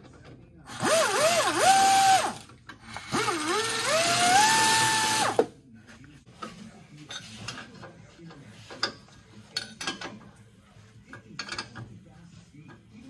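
Air ratchet running exhaust flange bolts in two bursts, with a loud air hiss; its pitch dips under load and then levels off as each bolt spins freely. After that come light metallic clicks and clinks of hand work on the bolts.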